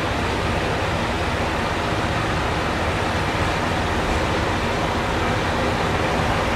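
JR East KiHa E130 series diesel railcar set moving off, its diesel engines running with a steady low drone and even noise that grows slightly louder toward the end.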